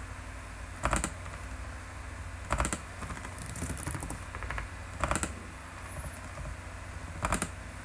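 Computer mouse clicks and keyboard keystrokes, in about five short clusters a second or two apart, over a low steady hum.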